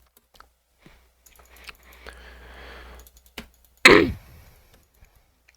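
A man clearing his throat once, a short loud burst a little under four seconds in, after a faint hiss of breath about two seconds in.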